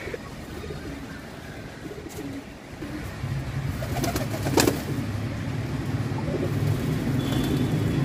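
Domestic pigeons cooing in a loft, a low rolling coo that swells from about three seconds in and carries on. A single sharp knock sounds about halfway.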